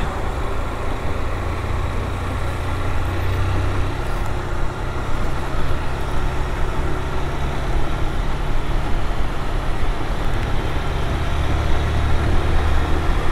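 Honda CG Fan 160's air-cooled single-cylinder four-stroke engine running steadily under way, a low hum heard through the rider's helmet microphone along with steady wind and road noise.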